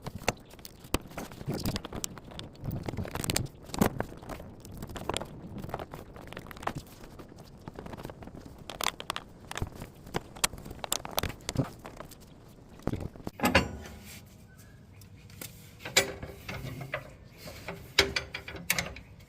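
Irregular clicks, clinks and scrapes of metal parts being handled by hand as a rod is hooked onto a spring in a ride-on mower's drive linkage, with a few sharper knocks in the second half.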